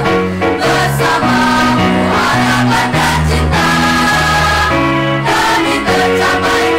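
Children's school choir singing a song together, led by a conductor, with sustained low notes under the voices.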